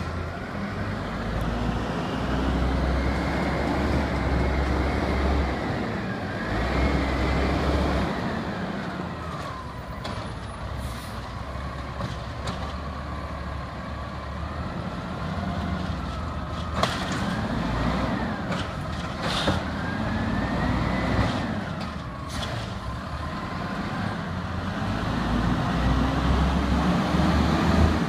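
Garbage truck's diesel engine running as it drives slowly along, its pitch rising and falling every few seconds as it pulls away and slows. A few brief hisses come about two-thirds of the way through.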